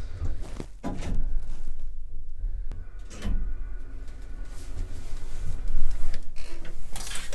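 Lift doors, an outer door and an inner door, being opened and closed at the ground floor: a few clunks and rattles, the loudest near the end, over a steady low rumble.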